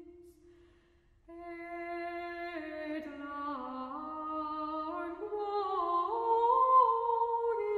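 Slow, wordless vocal music: two or more voices holding long notes and sliding slowly between them, like layered humming. It drops almost to silence at the start and comes back a little over a second in.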